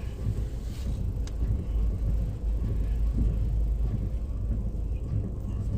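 Steady low rumble of a car's engine and tyres heard from inside the cabin while driving, with a faint click a little over a second in.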